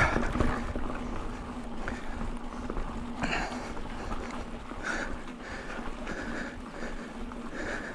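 Mountain bike rolling over a rough, rutted dirt track: steady tyre noise and rattle of the bike, with the rider's heavy puffing breaths coming every second or two.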